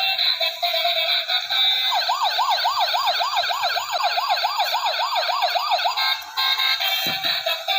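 Toy police car's electronic sound chip playing a tinny tune, then a fast warbling siren, about three wails a second, for around four seconds, before the tune returns. A small knock near the end.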